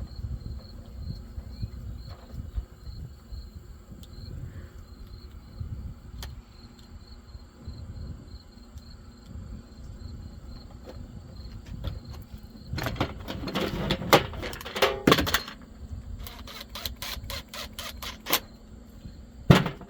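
Plastic and metal parts of a string-trimmer head clicking and rattling in the hands as it is put back together after a bearing replacement, the clatter thickest in the second half. Insects chirp steadily in the background.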